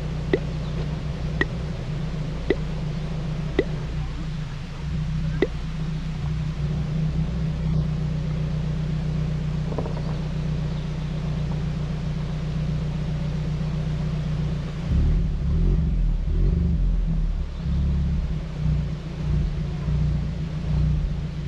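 Alfa Romeo 4C's turbocharged four-cylinder with Akrapovic exhaust running at low revs as the car creeps through a shallow ford, a steady low drone. A few sharp clicks come in the first five seconds, and about fifteen seconds in the low rumble grows louder and uneven.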